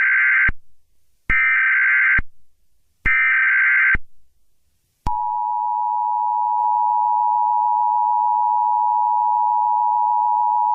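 Emergency Alert System tones: three short bursts of the digital SAME header, each just under a second and about a second apart. About five seconds in, the steady two-tone EAS attention signal begins.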